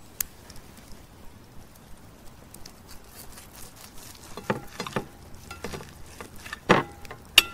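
Steak knife and fork cutting into a seared steak on a ceramic plate: a few short scrapes and sharp clinks of metal on the plate in the second half, the loudest two near the end, with the plate ringing briefly after them.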